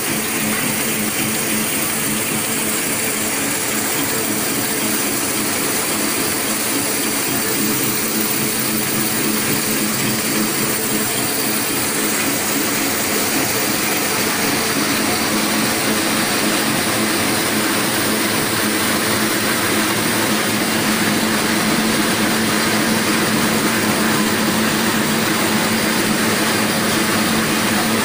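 Fully automatic two-colour double-embossing napkin making machine running steadily: an even, continuous mechanical noise with a steady low hum.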